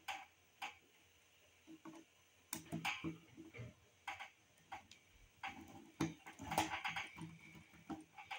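Irregular light clicks and scrapes of a hand screwdriver turning small screws down into a motorcycle carburetor's diaphragm cover, with some clicks bunched together about a third of the way in and again after the middle.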